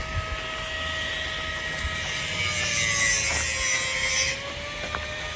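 A small motor humming steadily, its pitch sagging slightly about three seconds in and then recovering, with a few faint knocks over it.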